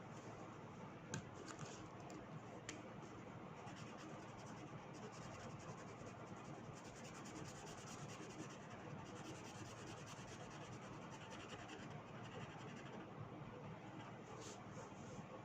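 Faint, steady scratching and rubbing of craft materials being worked by hand, with a couple of light clicks about a second in and again near three seconds.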